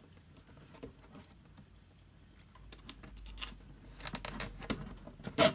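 Small plastic clicks and rustles of a nylon cable tie being worked through a hole in the RC body shell and pulled through. The clicks start about halfway in and grow quicker and louder, with one sharp click near the end.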